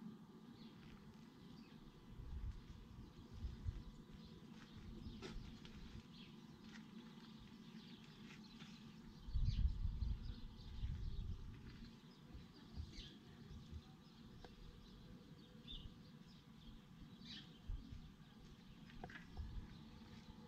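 Faint outdoor ambience with scattered short, high bird chirps. Low rumbles come and go, loudest about nine to eleven seconds in.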